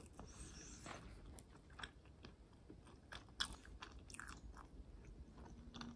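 Faint, close-up chewing of olive ciabatta, with soft, irregular crunches and small mouth clicks.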